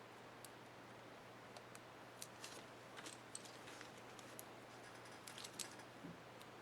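Faint, scattered small plastic clicks and ticks over a low steady hum, mostly from about two seconds in: a laptop keycap and its plastic retainer clips being handled and fitted on an HP ENVY 15 keyboard.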